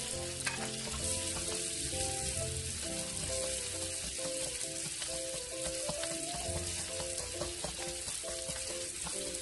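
Chopped onions and garlic sautéing in hot oil: a steady sizzle.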